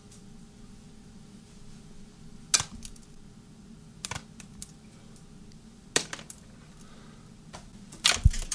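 A few sharp, short clacks and knocks spaced a second or two apart, the loudest a quick cluster near the end, over a low steady hum.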